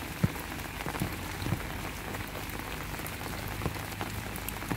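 Heavy rain falling steadily on wet ground, leaves and trees, with a few sharp taps of drops; the loudest tap comes about a quarter second in.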